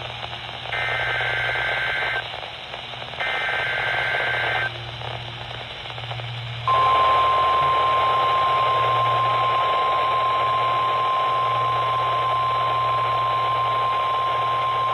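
NOAA Weather Radio weekly test alert received over a weather radio. Two short bursts of warbling two-tone SAME digital header data come a couple of seconds apart. After a brief gap, the steady 1050 Hz warning alarm tone starts about seven seconds in and holds, all over radio static and hum.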